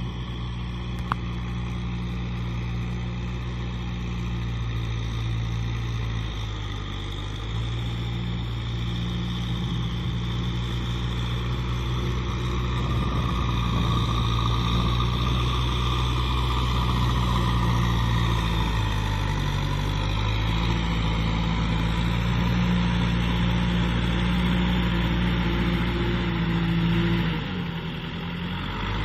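Kubota M6040 SU tractor's four-cylinder diesel engine running under load as it drives a rotary tiller through flooded paddy mud. The engine note shifts up and down a few times and grows louder from about halfway through, then drops near the end.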